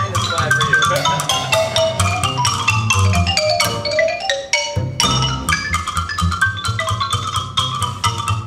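Live ragtime trio playing a Charleston: xylophone running quick melodic notes over plucked upright bass and drum kit. The bass drops out for about a second near the middle, then the full band comes back in.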